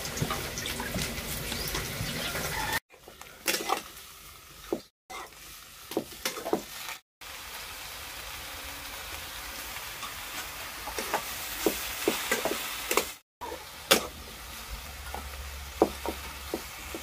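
Cauliflower curry sizzling in a steel kadhai over a wood fire, with a ladle clinking and scraping against the pan and water poured in partway through. The sound breaks off for a moment several times.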